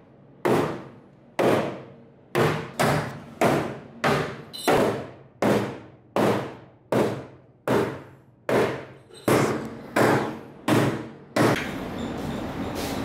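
A hammer pounding the sheet-steel underside of a Mazda Miata body shell, about seventeen hard blows at one or two a second, each ringing briefly. It is beating out the transmission tunnel to make room for an LS engine's bell housing. The blows stop near the end, and a steady noise follows.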